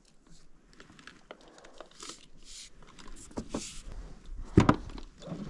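Scattered clicks and rustling of fishing tackle being handled in a small boat while a hooked trout is played alongside, with a few short bursts of hiss and one heavy thump about four and a half seconds in.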